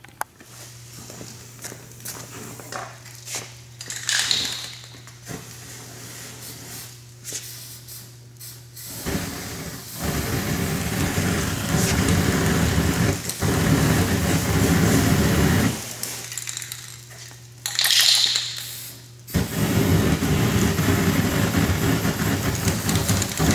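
Gas torches burning out the old rubber subframe bushings, a loud steady rushing flame noise in two long stretches, starting about nine seconds in and again near the end. A short hiss comes just before the second stretch.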